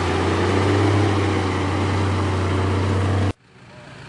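Off-road 4x4's engine running close by, a steady low hum. It cuts off abruptly a little over three seconds in, leaving a much fainter engine sound.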